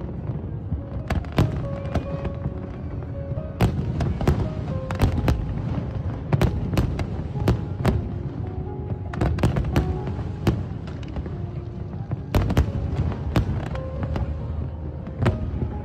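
Aerial fireworks bursting over water, a rapid, irregular series of sharp bangs and cracks, over background music.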